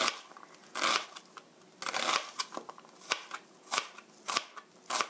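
Kitchen knife chopping an onion on a cutting board: a series of short, sharp chops, about eight, unevenly spaced.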